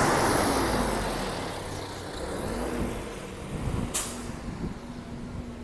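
Road traffic: a vehicle passes close by and its noise fades over the first two seconds, with engines running on the street and a short sharp hiss about four seconds in.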